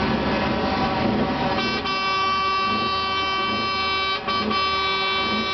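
Truck air horn sounding a long, steady blast that starts about a second and a half in, with a brief break about four seconds in, after a noisy mix of engines and traffic.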